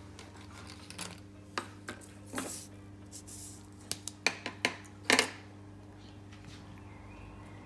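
Felt-tip markers being handled on a tabletop: about ten sharp clicks and knocks, the loudest a double knock a little past five seconds in. A steady low hum lies underneath.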